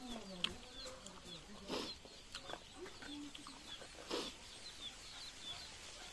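Chickens clucking, with small birds chirping throughout. Two short rustling noises come about two and four seconds in.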